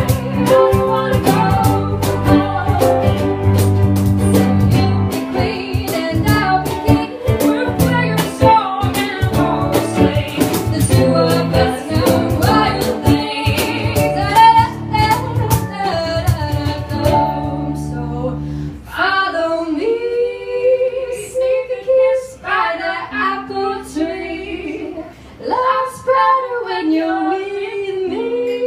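Live band playing a song, with women singing over guitars and drums. About two-thirds of the way through, the drums and low end drop out, leaving the voices over light plucked strings.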